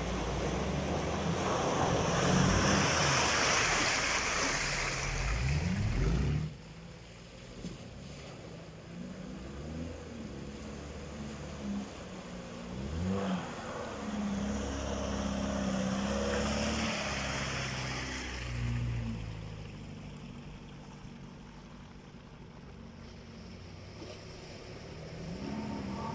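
Off-road 4x4 engine revving as the vehicle drives through deep water, with water rushing and splashing around it. The rushing is loudest for the first six seconds and stops suddenly. The engine rises in pitch twice, near the sixth and thirteenth seconds.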